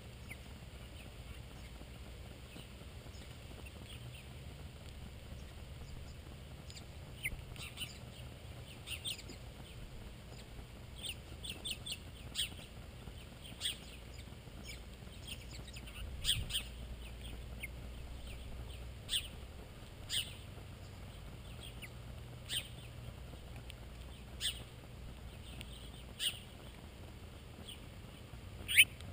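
Small songbirds giving short, sharp chirps, a dozen or so scattered calls starting several seconds in, the loudest near the end, over a faint steady low hum.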